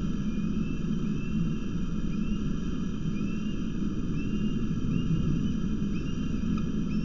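Steady low rumbling noise with faint, short rising chirps repeating about once or twice a second over it.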